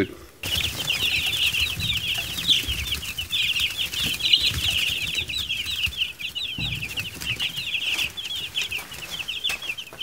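A brooder full of week-old meat-bird (broiler) chicks peeping constantly, many short, high peeps overlapping, starting about half a second in.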